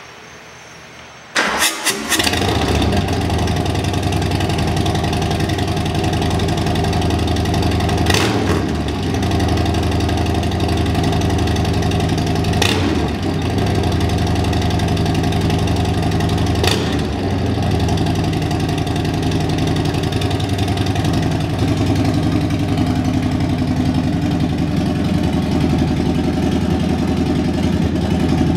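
Harley-Davidson Milwaukee-Eight 114 V-twin cranks over and fires up through a baffle-less Bassani Road Rage 3 two-into-one stainless exhaust, then settles into a loud, steady lumpy idle. Three brief sharp pops come about 8, 13 and 17 seconds in.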